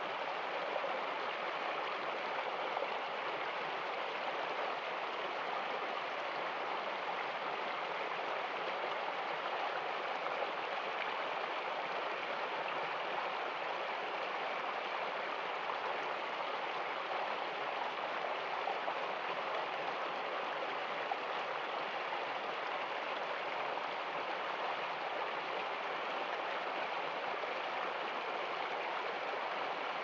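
Shallow forest stream flowing over rocks, a steady rush and gurgle of running water.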